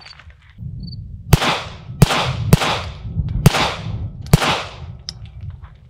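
Five 9mm shots from a Staccato P 2011 pistol, fired at an uneven pace about half a second to a second apart, each trailing off in a short echo.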